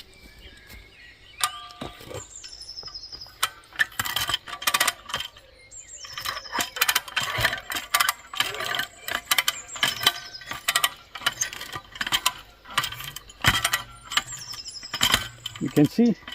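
Irregular metallic clicks and clatter from a hand ratchet cable puller (come-along) being handled under tension, its pawl and lever clicking against the sprocket, thickest in the middle.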